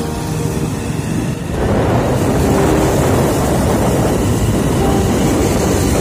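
Motorcycle riding along at speed, its engine under a heavy rush of wind on the microphone that grows louder about a second and a half in.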